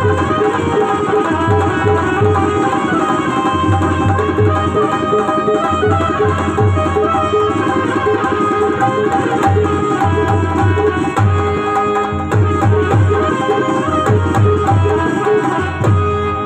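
Instrumental devotional music: a harmonium playing a melody over steady rhythmic hand-drum beats.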